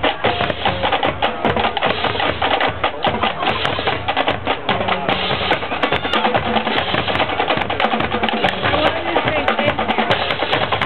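Marching drum line playing a fast, dense cadence: rapid snare drum strokes and rolls over lower drums, with many crisp hits a second throughout.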